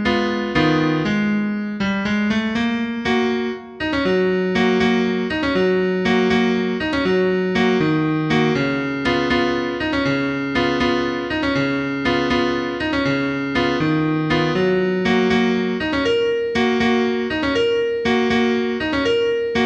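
Calm background piano music: a slow melody of struck notes with chords underneath, with a brief break about four seconds in.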